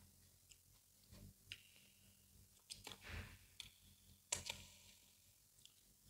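Quiet, scattered sticky clicks and smacks of fufu being pinched off and eaten by hand, the sharpest about four seconds in.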